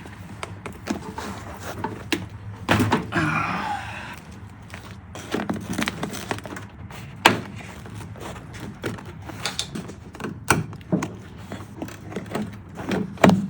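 Hands working an interior light fitting out of a Porsche 356's roof: scattered clicks, knocks and scraping of plastic and metal parts, with a rustling stretch about three seconds in and a sharp knock about halfway through.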